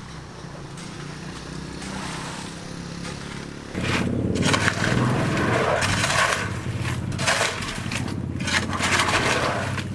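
A steady low machine hum, with loud rough scraping and crunching starting a little under four seconds in.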